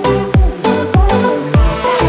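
Upbeat electronic background music with a steady kick-drum beat, about two beats a second.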